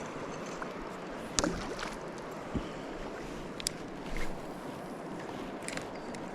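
Steady rush of flowing river water, with a few short sharp clicks and knocks over it, the loudest about a second and a half in.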